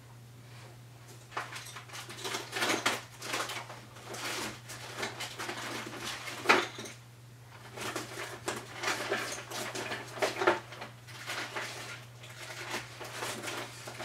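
Irregular clicks, taps and rustling from handling watercolor painting supplies (brush, paints, palette) on a work table, with one sharper tap about halfway through, over a steady low electrical hum.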